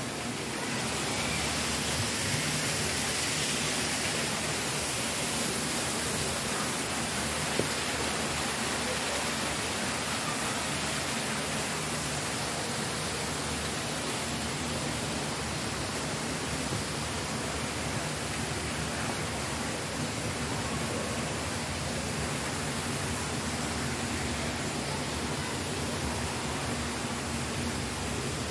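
Steady rush of running water churning into a pond.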